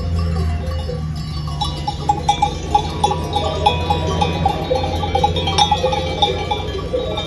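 Bells worn by grazing sheep clinking and clanking irregularly, many small strokes overlapping, over a steady low hum.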